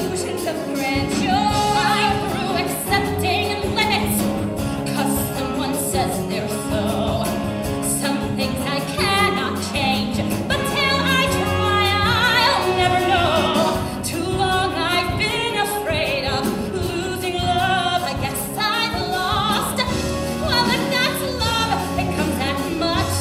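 A woman singing a musical-theatre song with a live orchestra, the voice wavering on a long held note about halfway through.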